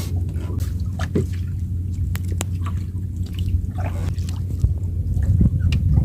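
Water sloshing and lapping over a steady low rumble, with scattered small clicks and taps.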